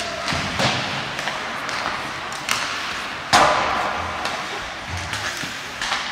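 Ice hockey play in a rink: four sharp knocks of sticks and puck, the loudest a little past halfway and ringing on briefly, over a steady hiss of skates on the ice.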